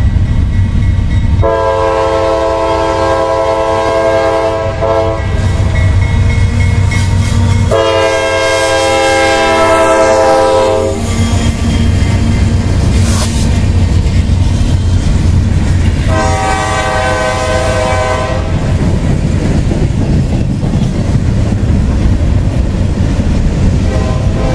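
CSX freight train passing: the diesel locomotive's air horn sounds three long chords of about three seconds each, with a fourth starting near the end. Under it, a steady low rumble of the locomotive engines and the wheels of the freight cars clacking over the rails.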